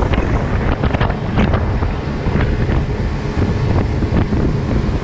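Wind buffeting the microphone aboard a moving motorboat, over the steady running of the boat and rushing water, with irregular gusty thumps throughout.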